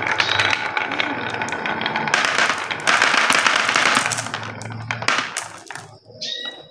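Many glass marbles rolling and clacking down carved wooden grooved tracks, a dense rattling clatter. It thins out and fades from about four seconds in, and a short ringing tone sounds near the end.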